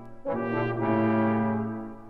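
Background music: brass instruments play a slow, held chord that swells in about a quarter of a second in and fades away near the end.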